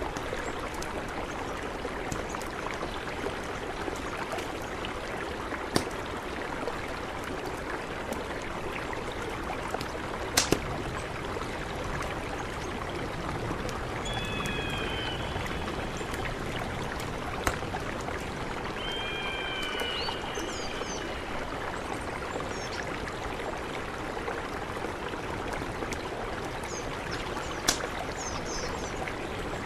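Mountain river rushing steadily, with a few sharp clicks of water. Two short whistled calls sound about 14 and 20 seconds in, and faint high chirps come near the end.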